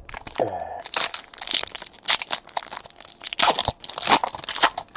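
Trading card pack wrapper being torn open and crinkled by hand: a run of crackling rips and crinkles, with a short falling squeak near the start.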